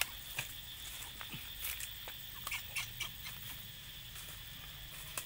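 Scattered light crackles and ticks of dry leaf litter as a mother macaque handles her baby lying on the leaves, over a faint steady high-pitched tone.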